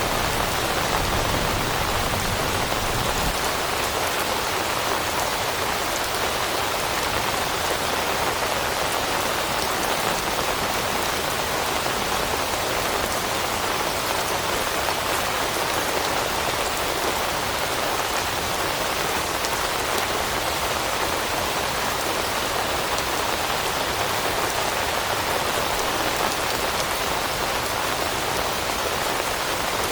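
Steady rain falling on leaves, an even hiss of countless drops that neither builds nor fades.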